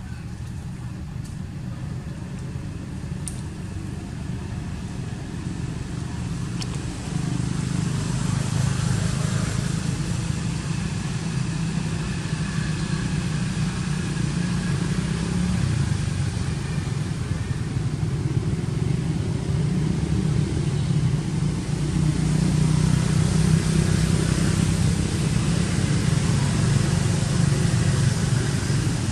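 Steady low engine rumble, like a motor vehicle running, growing louder about seven seconds in and staying at that level.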